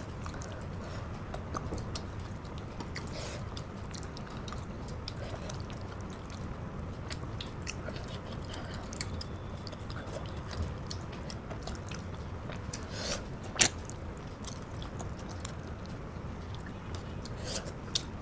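A person chewing and eating by hand, with scattered small mouth clicks and one sharper click about two-thirds of the way through, over a steady low background hum.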